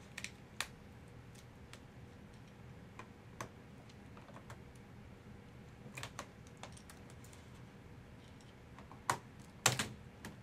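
Scattered plastic clicks and snaps as an Asus G73J laptop's keyboard is pried free of its retaining notches with a flat screwdriver, the loudest pair near the end.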